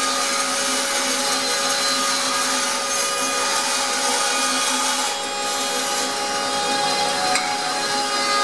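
Record Power BS300E band saw running steadily, its blade cutting a curve through a wooden board. The sound eases slightly about five seconds in, and a sharp knock comes near the end.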